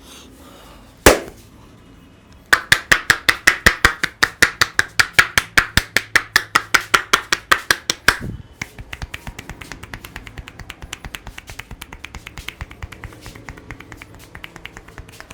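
Percussive hand massage: palms slapping rapidly on skin. There is one sharp smack about a second in, then a fast run of loud slaps at roughly eight a second for about five seconds, which drops to lighter tapping at a similar pace for the rest.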